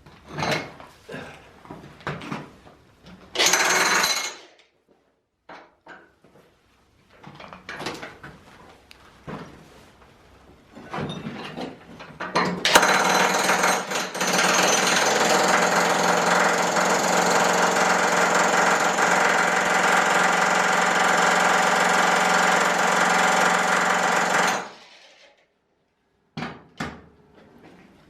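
Power hammer-chisel running steadily for about twelve seconds, chipping at an old boiler to break it apart, then cutting off abruptly. Before it come scattered knocks and a short burst of the tool, and a few knocks follow near the end.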